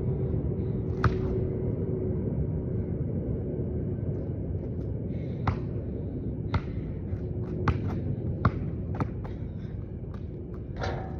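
A basketball striking hard surfaces: about six short, sharp knocks at uneven intervals over a steady low rumble.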